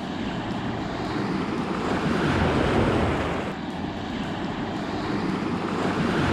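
Waves washing at the water's edge, with wind on the microphone: a steady rushing noise that swells twice and eases.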